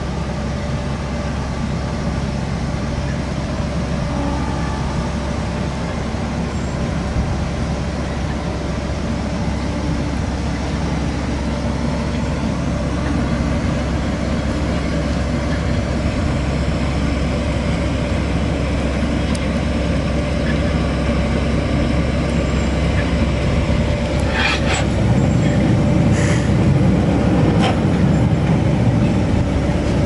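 AVR Puma 4.0 self-propelled potato harvester running steadily as it drives closer, its engine and machinery growing slightly louder, with a few sharp clanks near the end.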